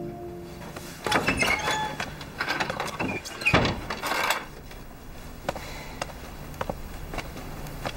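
A wooden door clattering and creaking open and shut, then a few light knocks and steps.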